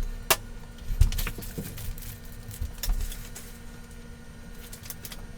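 Scattered clicks, knocks and rattles of hands handling a 3D printer's parts, with the loudest thumps about a second in and again near three seconds, over a faint steady hum.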